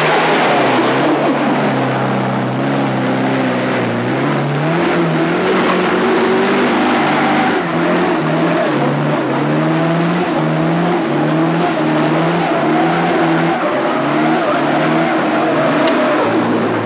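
A car engine revs hard as the car climbs a muddy trials hill. From about six seconds in, the engine surges up and down in pitch about once a second while the wheels spin and fight for grip, throwing up mud.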